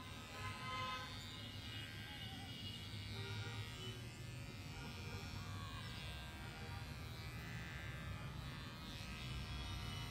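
Electric pet clippers buzzing steadily as they cut through a cat's fur.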